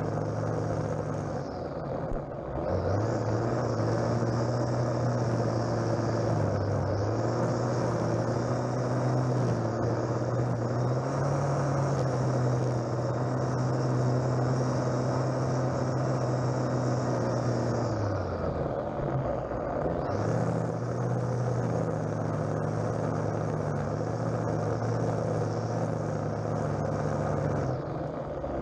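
String trimmer (strimmer) running at high revs, its line cutting grass. The motor's pitch drops and picks up again about two seconds in, between about 18 and 20 seconds, and once more near the end.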